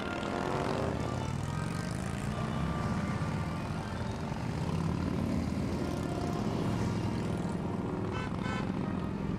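A line of big cruiser and touring motorcycles riding past at low speed, their engines rumbling one after another, with the pitch gliding up and down as each bike goes by.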